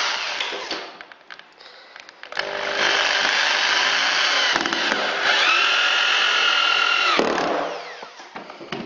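Electric drill driving long wood screws into floorboards to stop them squeaking. It runs briefly and stops about a second in. After a pause with a few clicks it runs again for about five seconds, its whine climbing in pitch partway through, then stops.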